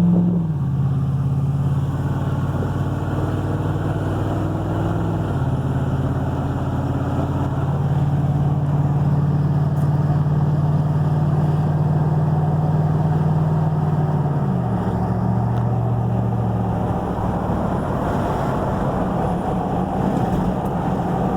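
Vehicle engine and road noise heard from inside the cab while driving: a steady engine hum that shifts pitch a few times, dropping about two-thirds of the way through and rising again shortly after.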